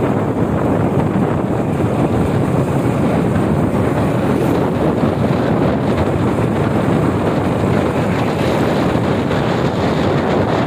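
Wind buffeting the microphone as it travels across an open bridge: a loud, steady rush with no distinct events.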